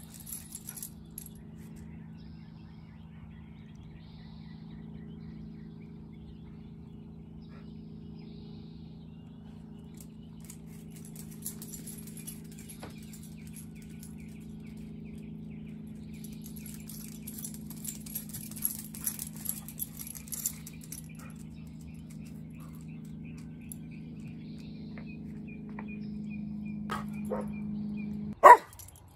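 Dogs playing: collar tags jingle in bursts as an Irish Terrier and a Kerry Blue Terrier run about, over a steady low hum. Near the end a couple of soft yaps lead into one loud bark.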